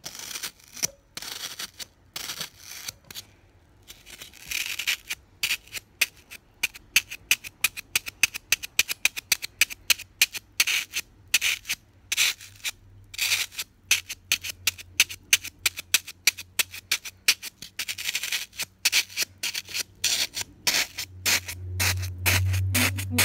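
Fingers scratching and rubbing a block of green floral foam in short, quick strokes. The strokes are sparse at first, then come rapidly from about five seconds in.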